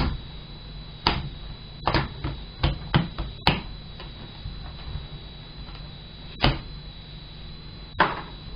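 Plastic screen bezel of a Dell Latitude E7270 laptop snapping free of its retaining tabs as it is pulled off by hand: a run of sharp, irregular clicks, bunched in the first few seconds with two more later. A faint steady high whine sits underneath.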